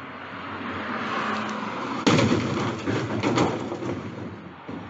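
A rush of noise that grows louder for about two seconds, then a sudden loud crash followed by a second or so of clattering that dies away.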